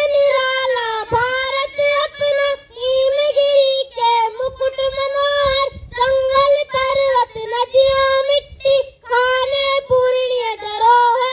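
A boy singing solo into a microphone without accompaniment, in a high voice with long held notes, in phrases broken by short pauses.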